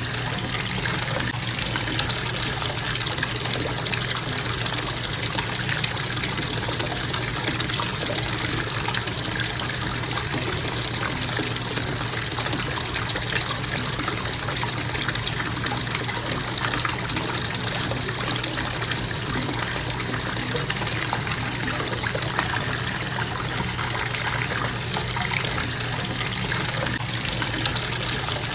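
Bathtub faucet running steadily, water pouring from the spout into the tub with an even splashing rush.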